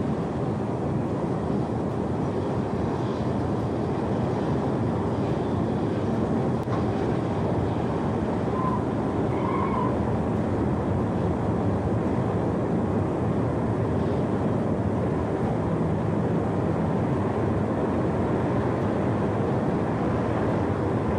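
A tornado's loud, steady low roar, an unbroken rumble with no let-up.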